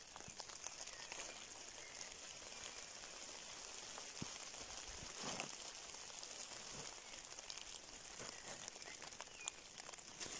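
Light drizzle pattering on wet forest leaf litter, with footsteps rustling through the fallen leaves; a louder rustle about five seconds in.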